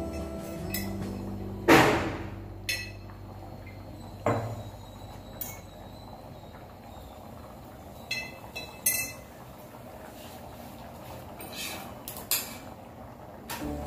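Scattered knocks and clinks of a spatula and hands on a tawa and steel pan while a chapati is turned and pressed, the loudest a sharp clank about two seconds in. Under them, a steady low hum from the induction cooktop.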